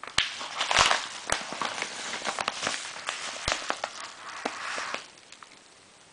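Packaging being handled: crackling and rustling with many sharp clicks for about five seconds, then it stops.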